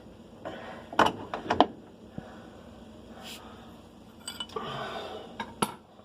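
Metal clinks and clanks of hand tools against the parts of a washing machine being taken apart: three sharp knocks about a second in, then more clinks and a brief scrape near the end.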